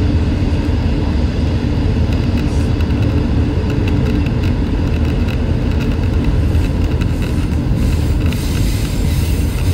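Steady rumble of a train in motion, heard from aboard a diesel rail motor as a container freight train passes alongside.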